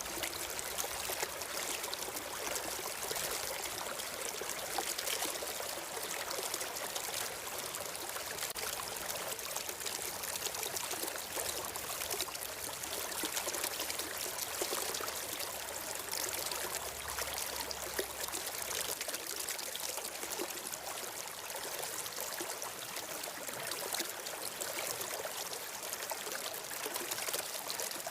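Stream water flowing and trickling in a steady rush.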